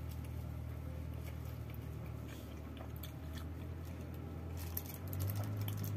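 A man chewing a mouthful of roti canai, with faint scattered mouth clicks, over a steady low hum.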